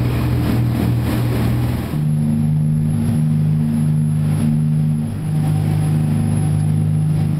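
Sport-fishing boat's engines running steadily under way, a loud low drone with water and wind noise over it. The engine tone shifts abruptly about two seconds in and again near five seconds.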